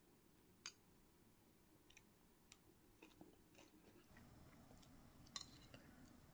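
Faint, sharp clicks of metal chopsticks and a spoon against a ceramic plate and sauce bowl: two clear taps, about a second in and again near the end, with a few lighter ticks between, over near silence.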